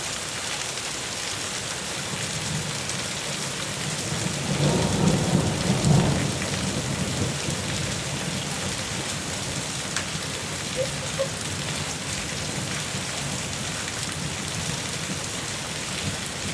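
Thunderstorm rain falling steadily, with a rumble of thunder about five seconds in that is the loudest part.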